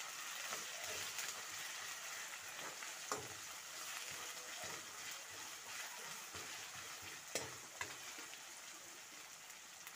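Sliced onions, green chillies and bay leaves sizzling in hot oil in a wok as a spatula stirs them, with a few sharp clicks of the spatula knocking against the pan.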